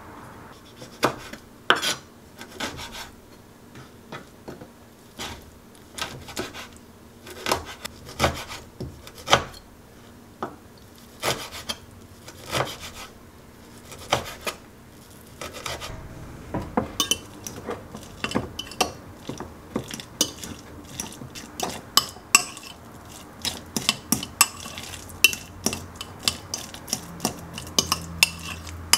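Chef's knife chopping on a plastic cutting board in quick, irregular knocks, dicing cherry tomatoes and other small pieces. Near the end, avocado is mashed in a glass measuring cup, with a utensil scraping and clinking against the glass.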